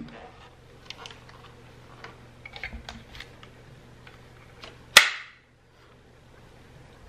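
Small plastic clicks and taps from handling the Dyson V11 vacuum's wand and cleaner head, then one loud sharp click about five seconds in as a part is snapped into place.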